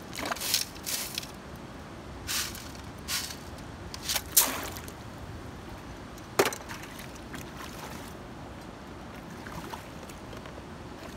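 Wet river gravel rattling and splashing in a classifier sieve over a bucket as it is shaken and tipped during gold panning, in several short clattering bursts over the first seven seconds, with steady water noise underneath.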